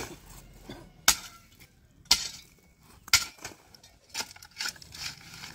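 A pickaxe striking hard, stony dry ground, with stones clinking as they break loose. The blows come about once a second, then quicker near the end.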